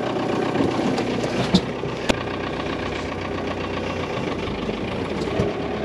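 A truck engine running steadily at idle, with two sharp clicks about one and a half and two seconds in.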